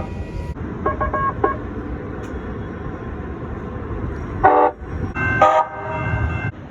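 Calgary CTrain light-rail train sounding its horn twice: a short blast about four and a half seconds in, then a longer one about a second later, over the low rumble of the train.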